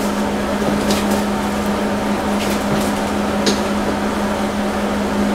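A steady hum with a few light clicks and taps as a car battery is shifted into place on a sheet-metal battery tray.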